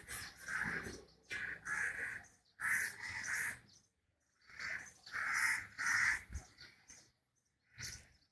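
A series of short, harsh animal calls in quick succession, with a few brief pauses between them.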